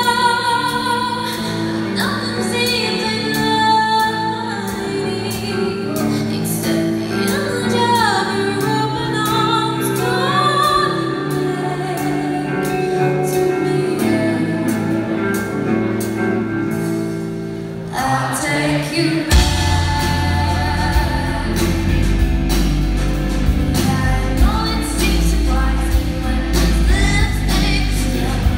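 Indie rock band playing live with a female lead vocal. A sparser passage of held chords and wavering sung lines gives way, about two-thirds of the way through, to the full band coming in with heavy bass and drums.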